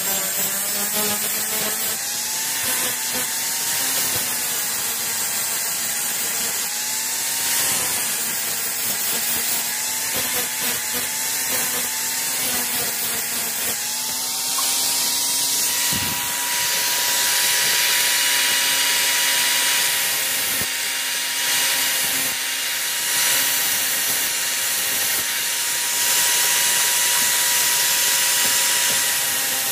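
Electric angle grinder grinding steel, the motor's pitch wavering under load over a hissing grind. About halfway through the load comes off and the motor runs at a steady pitch.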